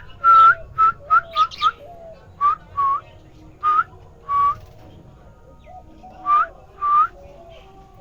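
About a dozen short whistled notes, each ending in a quick upward flick, in uneven clusters, over softer warbling lower down.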